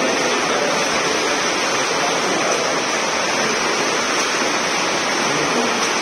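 Steady wash of water splashing as swimmers swim front crawl in a pool.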